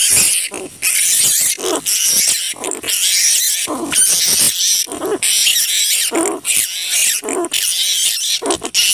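Large flying fox (kalong kebo) calls used as a hunting lure: harsh, rasping screeches and squawks following one another in quick, irregular succession.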